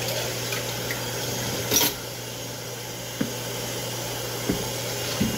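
Dishes being washed by hand in a kitchen sink: one loud clatter of dishes about two seconds in and a few lighter knocks later, over a steady hiss and a low hum.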